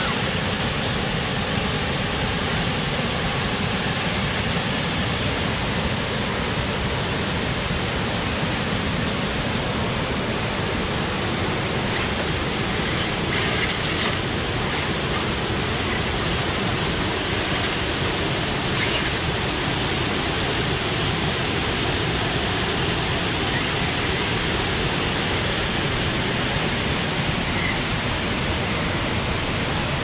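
Steady rushing of water in a rocky creek with rapids, an even hiss that holds at one level throughout.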